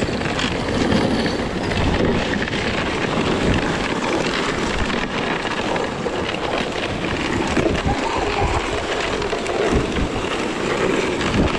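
Dog sled running over a packed snow trail: the runners hiss and scrape steadily on the snow with small irregular bumps and knocks, with wind buffeting the microphone.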